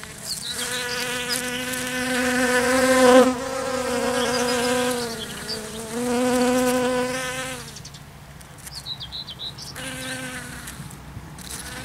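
Honeybees buzzing in flight close to the microphone as they forage in a flower. The buzz swells and fades in several passes, dips briefly in pitch about halfway through, dies away around eight seconds in and returns briefly near the end.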